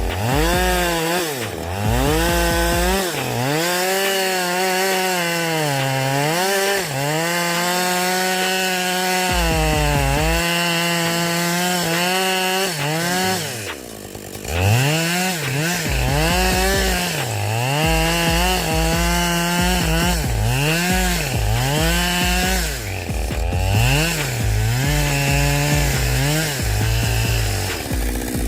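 Two-stroke chainsaw running at high revs while cutting wood. Its engine pitch dips and recovers again and again as the chain bogs in the cut and frees up. There is a short break about halfway, after which the dips come about once a second.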